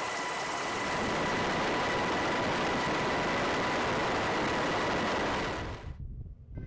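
Steady machine noise, a dense rumble and hiss with a faint high whine, fading out about six seconds in.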